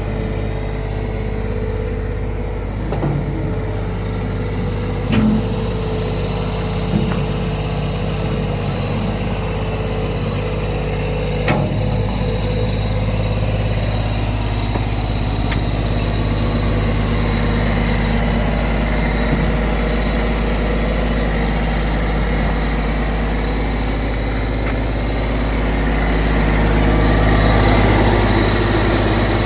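Diesel engine of a Bobcat 553 skid steer loader running steadily at idle, with a few short knocks and growing somewhat louder near the end.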